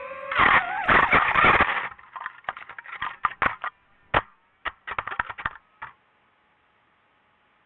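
DJI FPV drone crashing into a tree branch: a loud clatter for over a second as it hits, then a string of sharp clicks and cracks. The clicks stop about six seconds in, leaving faint hiss.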